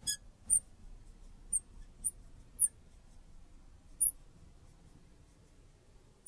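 A marker writing on a dark board, squeaking briefly and sharply on the strokes: about six squeaks in the first four seconds, the first with a ringing tone, with faint scratching between them.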